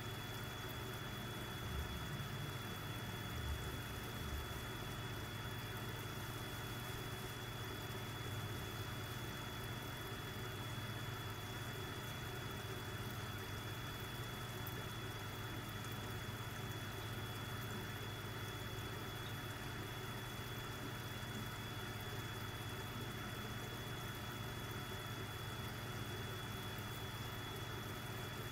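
Steady low electrical hum of running aquarium equipment, with a thin, steady high whine above it. A few soft low thumps come in the first few seconds.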